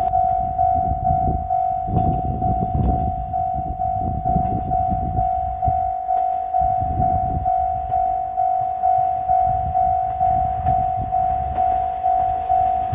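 Level-crossing warning bell ringing steadily, about one and a half strikes a second, while the Ibusuki no Tamatebako diesel railcar train rumbles through the crossing.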